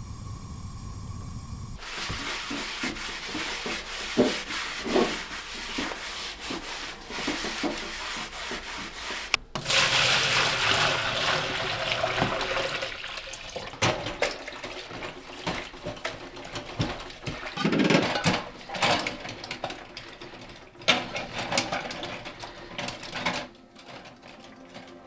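Water pouring and splashing into a plastic dish basin in a stainless steel sink, with scattered clinks and knocks of dishes being washed. The rush of water is loudest about ten seconds in.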